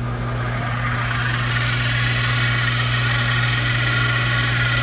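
Small benchtop milling machine's spindle motor switched on, its whir building over about the first second and then running steadily, over a constant low hum.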